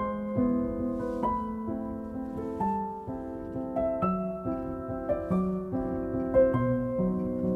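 Calm background music: a piano playing slow, gentle notes, about two a second, each one fading after it is struck.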